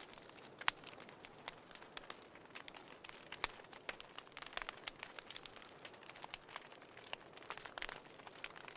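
Faint, irregular crackling: scattered sharp clicks and pops, several a second, over a soft hiss, with a denser cluster about halfway through and again near the end.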